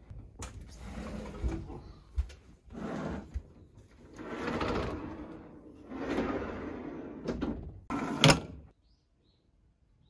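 Sliding metal storm shutter (amado) panels being run along their track: several rolling, scraping runs of a second or two each, with knocks between them and a loud bang near the end.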